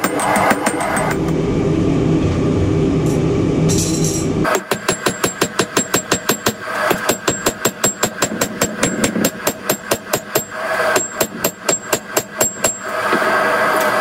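Hammer blows on red-hot steel on an anvil, struck rapidly and evenly several times a second, each with a bright metallic ring. They pause for about three seconds early on, when a steady rushing noise takes over, and the same noise returns near the end.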